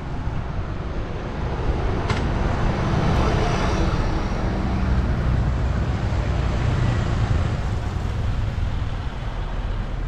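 Motor scooter riding along a town street: its small engine running steadily with road and traffic noise and a low rumble, growing louder through the middle. A single sharp click about two seconds in.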